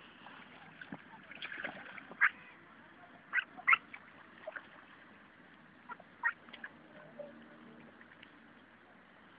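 Ducks calling in short, scattered calls, the loudest clustered a little after two seconds and around three and a half seconds in, with a few more about six seconds in.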